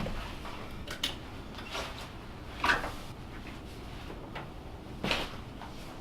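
Three short clunks, the loudest about halfway through, over faint steady background noise.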